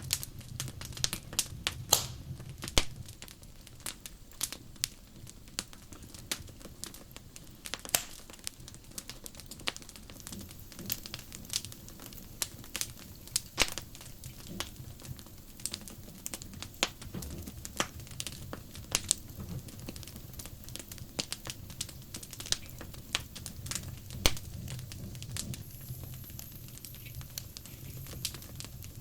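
Wood fire crackling, with irregular sharp pops and snaps, some louder than the rest, over a low steady hum.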